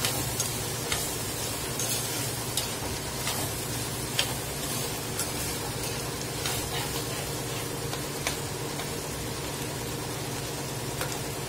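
A steel spoon stirs pumpkin peel and cooked green gram in a hot black chatti, with a soft sizzle and scattered clicks and scrapes of the spoon against the pot. A steady low hum runs underneath.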